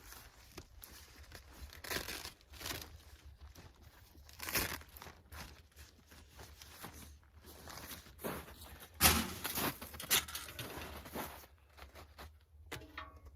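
Tent fabric rustling and crinkling as it is handled while the stove is worked into the tent, with several louder crackling bursts, the loudest about two-thirds of the way through.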